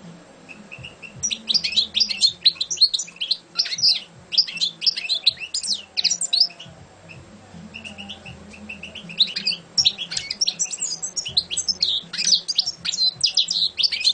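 A caged European goldfinch singing: two long phrases of rapid, high twittering notes with a short pause between them.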